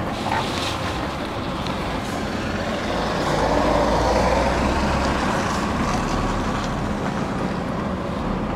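Scania truck's diesel engine running at low speed, heard from inside the cab while the truck turns slowly; the engine sound grows louder for a couple of seconds in the middle.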